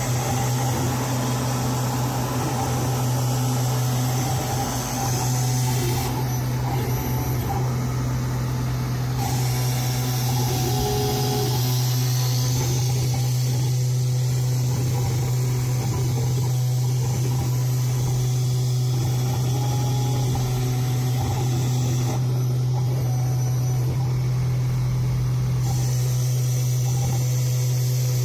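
CNC 3040 router milling a printed circuit board with a 0.5 mm V-bit: the spindle motor runs with a steady hum, and fainter higher tones come and go as the machine moves.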